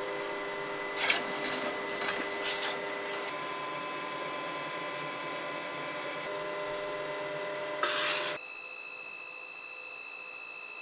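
Steady hum of workshop machinery with short scraping and rasping sounds about a second in and again around two seconds, and a louder grating burst near eight seconds. After that the sound drops to a quieter steady hum with a thin high whine.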